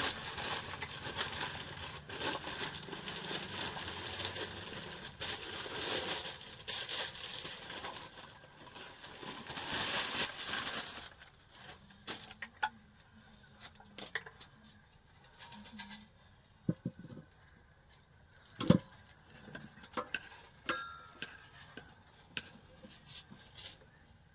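Packaging being handled: plastic or paper wrapping crinkling and tearing for about ten seconds, then a few scattered clicks and knocks as parts are set down, one louder knock near the end.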